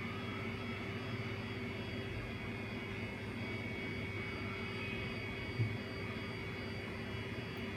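Steady mechanical hum and hiss from workshop machinery, with a few held tones running through it. A soft low thump comes a little past halfway.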